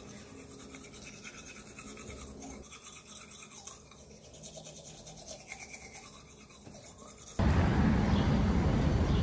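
Teeth being brushed with a toothbrush: quick, scratchy scrubbing strokes. About seven seconds in it cuts off abruptly to a much louder, steady outdoor background noise.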